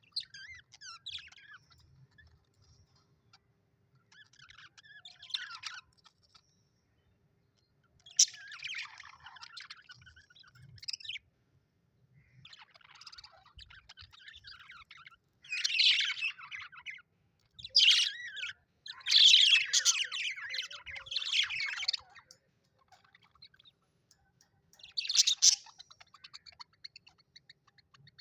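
Budgerigars chattering and chirping in bouts of rapid warbling calls with short pauses between, the busiest stretch a little past the middle.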